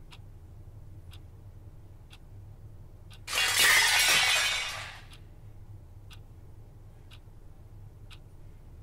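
A clock ticking about once a second, over a low hum. About three seconds in, glass shatters loudly and the crash dies away within two seconds, after which the ticking goes on.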